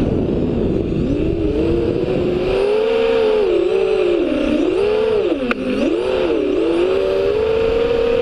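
FPV drone's electric motors and propellers whining, the pitch dipping and rising again and again with the throttle. Wind rumbles on the onboard microphone in the first couple of seconds, and there is one sharp click about five and a half seconds in.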